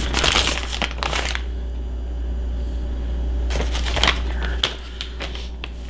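A plastic bag of shredded cheese crinkling as it is handled, in two bursts about a second long, the second about three and a half seconds after the first, over a steady low hum.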